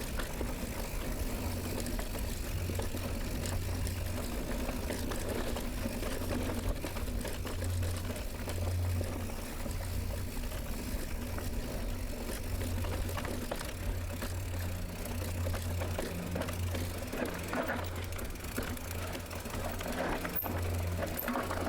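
Mountain bike being ridden on a dirt trail: steady drivetrain and tyre noise, with a low mechanical hum that comes and goes.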